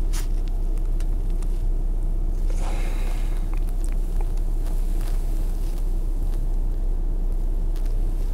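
Car driving, with a steady low rumble of road and engine noise heard from inside the cabin.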